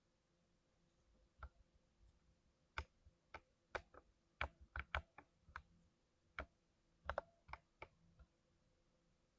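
Mechanical keyboard with freshly lubed switches, keys pressed one at a time in an irregular scatter of about twenty single clacks, starting about a second and a half in and stopping near the end.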